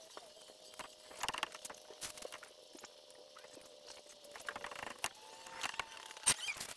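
Scattered light clicks and knocks from a caulking gun being squeezed and handled and from cans set down on a flexible solar panel being glued with Sikaflex sealant. The sharpest knock comes about six seconds in, over a faint steady tone.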